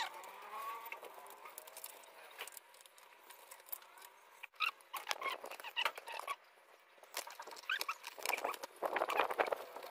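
Small scattered clicks and rattles of metal bolts, washers and plastic trim being handled and fitted by hand on a motorcycle's tail section, busier about halfway through and again near the end.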